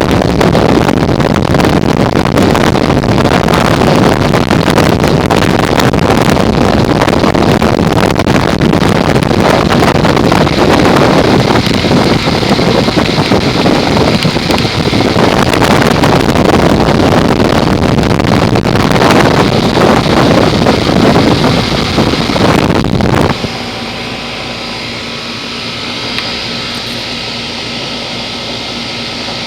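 A 2004 Goodman 10 SEER 3.5-ton heat pump condensing unit running, with a loud steady rush of air from its condenser fan. About 23 seconds in this drops suddenly to a quieter steady hum carrying a few faint tones.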